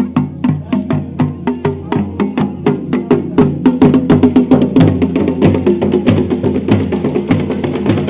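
Procession drumming: a dhol and a second hand drum beaten in a fast, steady rhythm of sharp strokes, about four or five a second, over low held musical tones.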